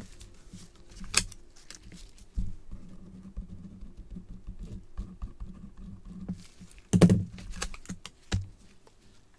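Scratchy strokes of a pen writing by hand, mixed with small clicks and rustles of gloved hands handling cards and packaging. There is a sharp click about a second in, a louder knock about seven seconds in and another near eight and a half.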